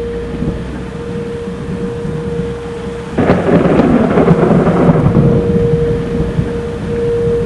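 A close thunderclap: a sudden crack about three seconds in that rolls into a rumble fading over several seconds, over steady storm noise and a steady hum.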